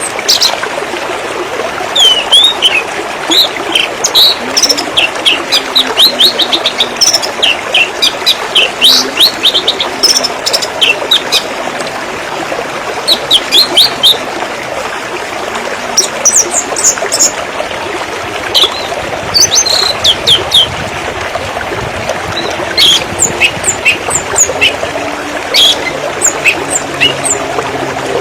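Steady rush of flowing river water, with small birds chirping over it again and again in quick runs of short, high notes.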